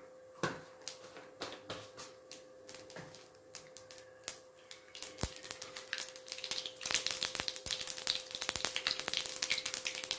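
Mustard seeds popping in hot sesame oil in a kadai: scattered pops at first, turning into a dense crackle about two-thirds of the way in as the seeds start to splutter.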